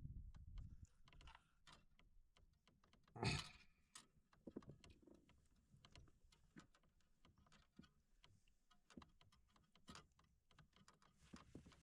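Faint scattered clicks and light knocks, with one louder knock about three seconds in.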